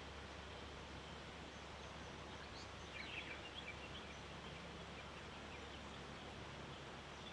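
Faint dawn ambience: steady hiss with a low hum beneath, and about three seconds in a brief flurry of short, high bird chirps lasting around a second.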